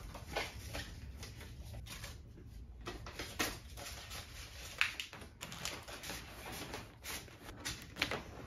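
Paper rustling with light taps and clicks as sticky notes and loose sheets of paper are handled, gathered and stacked on a desk, over a low steady room hum.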